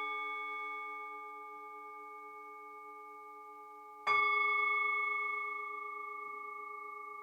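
Singing bowl struck about four seconds in, its several ringing tones sustained and slowly fading, over the still-ringing tones of a strike just before, with a wavering low tone beneath.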